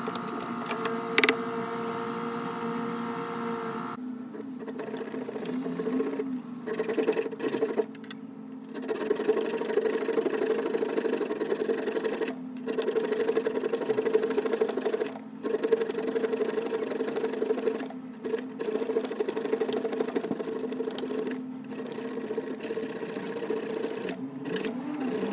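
A small round file rasping back and forth on the steel of a knife blade clamped in a vise, filing out the curved finger notch. The scraping is steady, with several brief breaks.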